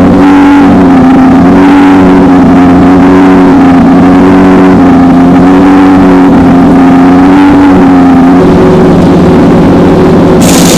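Race car engines running at a steady, held pitch, dropping to a lower steady note about eight seconds in. A short burst of hiss comes near the end.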